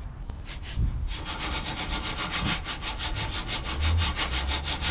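Hand ratchet with a 17 mm socket clicking rapidly and evenly as it spins out a control-arm bolt that has just been broken loose, starting about a second in.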